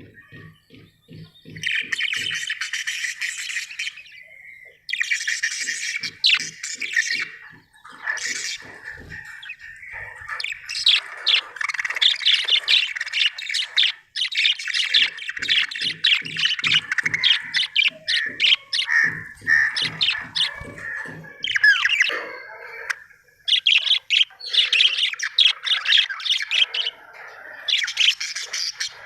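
Budgerigar chirping and warbling in long, rapid bursts with short pauses between them, mixed with squawks. Under some passages there is a low, rapid clicking of about five a second.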